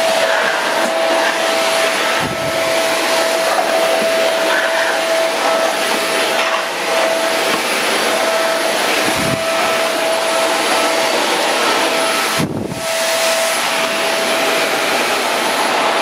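Stick vacuum cleaner running over a hard floor: a steady rush of air under a steady high whine from the motor. The sound dips briefly a few times, most clearly about twelve and a half seconds in.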